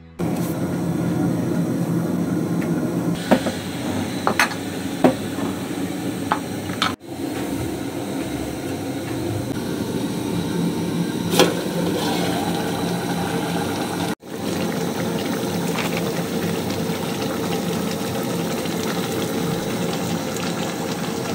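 A pot of stew simmering on a gas burner, with a steady bubbling hiss. Several sharp clinks of a utensil or lid against the aluminium pot come in the first half, and the sound breaks off for an instant twice.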